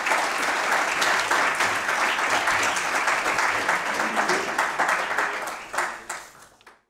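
Audience applauding, a steady patter of many hands clapping that thins out and fades away near the end.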